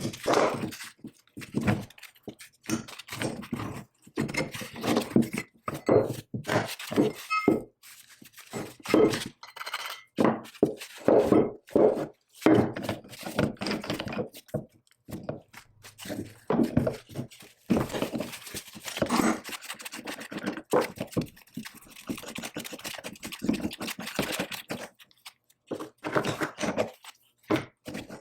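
Irregular knocks and clunks of heavy metal parts and hand tools being worked during the teardown of a 1920s power hammer, dozens of separate hits with short pauses between them.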